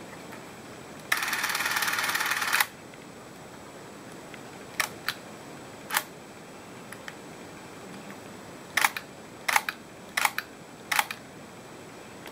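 Minolta Autopak-8 D6 Super 8 cine camera's motor whirs for about a second and a half, starting about a second in. Then come about ten sharp clicks from its controls and dial being worked, several in quick pairs near the end.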